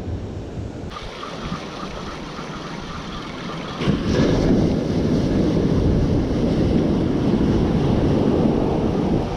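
Ocean surf washing onto a sandy beach, with wind buffeting the microphone; the sound grows much louder about four seconds in and stays loud.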